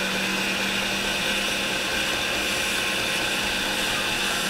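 Belt grinder running on a small-wheel attachment, with a knife handle's canvas Micarta scale pressed against the belt: a steady grinding hiss over the motor's even hum, as the scale is ground back flush with the titanium liner for the thumb relief.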